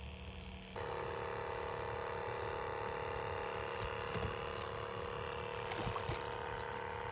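A steady mechanical hum with a pitched whine that starts abruptly about a second in and holds even, with a few faint clicks over it.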